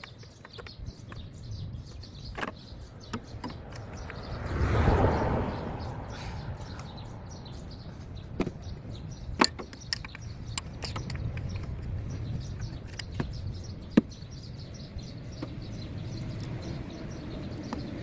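Scattered sharp clicks and knocks of tools and engine parts being handled, with a louder swell of rustling noise about five seconds in, over a steady low background rumble.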